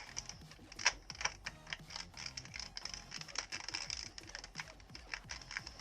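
Plastic Spider-Man novelty cube puzzle being turned by hand: quick, irregular clicking of its layers, one louder click about a second in.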